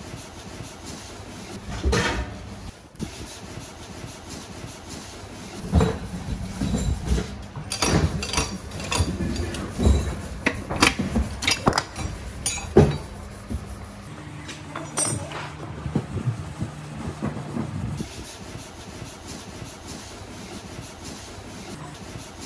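Metal clinks, knocks and scrapes of tools and diesel engine parts being handled during disassembly, busiest through the middle. A steady mechanical hum runs for a few seconds past the middle.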